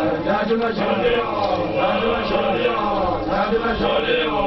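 A group of young Basotho men, initiation graduates (makoloane), chanting together in many overlapping male voices.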